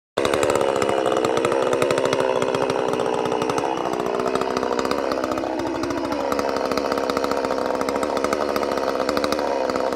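Chainsaw running at high speed, starting abruptly. Its pitch wavers and dips a little midway, as it would while cutting into a tree.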